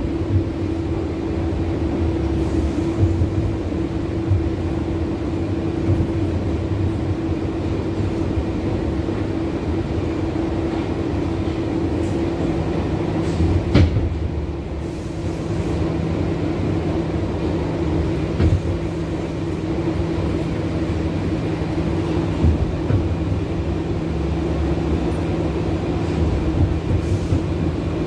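Inside a New York City subway shuttle car riding along the track: a steady low rumble with a constant hum, a second lower hum joining about halfway through. A single sharp clunk comes near the middle, with a few lighter knocks later on.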